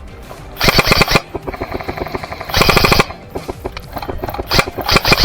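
Airsoft gun firing in rapid full-auto bursts: two bursts of about half a second, then a few scattered shots near the end.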